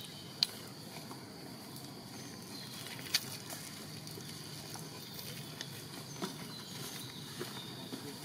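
Quiet outdoor background with scattered small clicks and rustles in the grass, where a long-tailed macaque is foraging. The sharpest clicks come about half a second and three seconds in.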